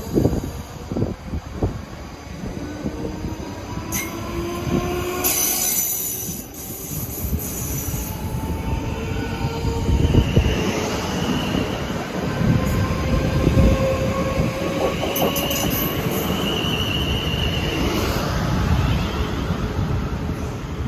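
A South Western Railway train running through the station, with steady rail noise, a whine that glides up and down in pitch, and high wheel squeal that comes and goes about halfway through.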